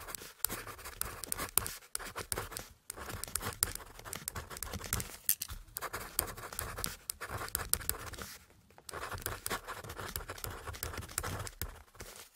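Ballpoint pen writing on paper: scratchy strokes and small taps of the tip, in runs broken by brief pauses between words.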